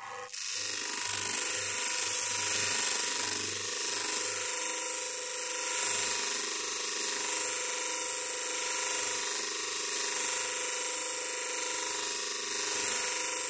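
Bench grinder running with the steel edge of an axe held against its wheel: a steady grinding hiss over the motor's hum, starting just after the start and stopping near the end.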